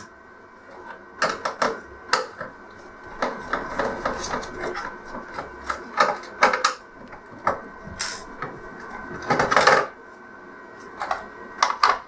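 Irregular light clicks and metallic clinks of a screwdriver undoing small screws from an LCD TV's circuit board and metal chassis, with the screws and parts being handled.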